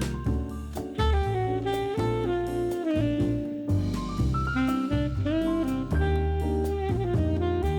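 Background jazz music: a saxophone melody over bass and drums.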